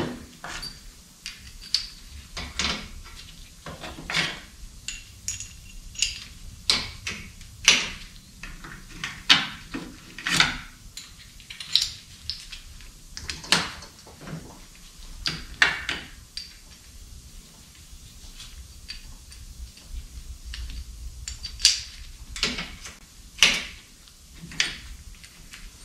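Irregular light metallic clinks and taps as brass guide shoes, honing stones and numbered shims are fitted by hand to a cylinder hone's head; the honing machine is not running.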